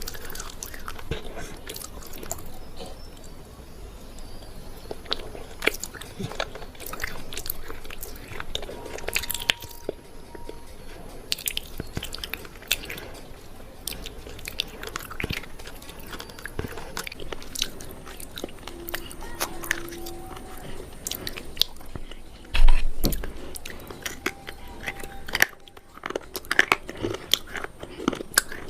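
Close-up crunching bites and chewing of a dry, hard, brittle food, a run of irregular sharp cracks and crackles. A loud low thump comes a little past three quarters of the way through.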